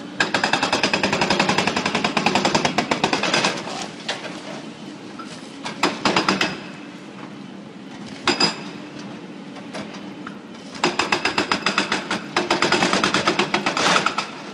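Excavator-mounted hydraulic breaker hammering on concrete in rapid runs of blows: a long run at the start, two short bursts in the middle, and another long run near the end.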